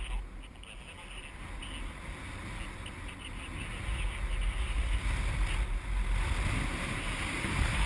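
Wind buffeting a GoPro's microphone while flying under a paraglider: a low, gusting rumble that grows stronger about halfway through.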